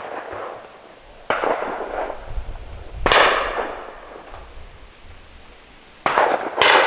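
A few rifle shots on an outdoor range, each a sharp crack that dies away over about a second. The loudest comes about three seconds in, and two more come close together near the end.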